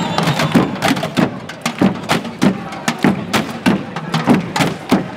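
A group drumming on plastic jerrycans and water containers with wooden sticks: a steady, even rhythm of about three strong beats a second, with quicker, lighter strikes between.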